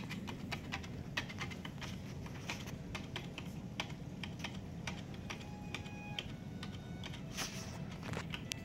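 Mag-Float magnetic algae cleaner with a razor blade scraping algae off aquarium glass: an irregular run of sharp clicks and scratches, over a steady low hum.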